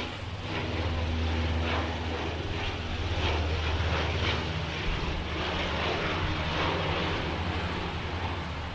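Propeller engines of a Canadair firefighting water-bomber running, a steady low hum.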